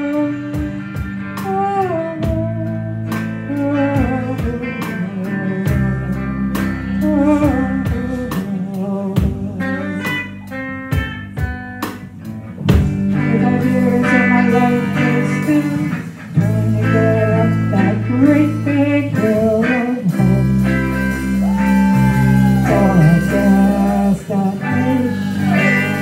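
Live rock band playing loudly: electric guitar, bass guitar and drum kit, with a woman singing the lead vocal.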